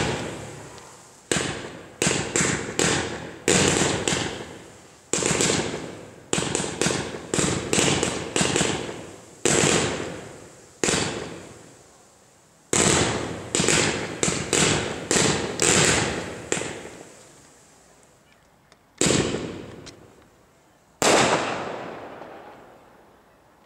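Category F2 consumer fireworks going off: a run of sharp bangs, about one or two a second, each fading away in an echo. The bangs thin out near the end to a few single, spaced bangs.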